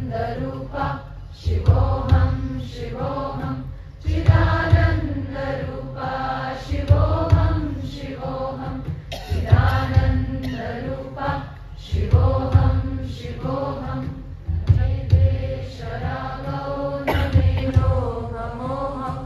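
Devotional chant sung by a group of voices with musical accompaniment, in repeating phrases a couple of seconds long, each marked by a deep low beat.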